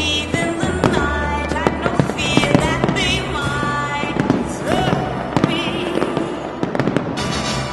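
Fireworks display: a dense run of sharp bangs and crackles from bursting shells, over loud music with held bass notes.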